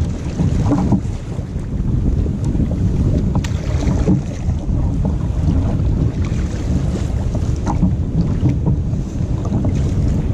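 Wind buffeting the camera microphone with a steady low rumble, over the occasional splash and drip of kayak paddle strokes in the water.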